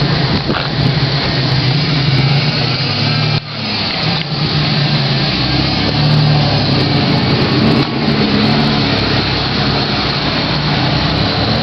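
A car engine running steadily, with a brief drop in the sound about three and a half seconds in.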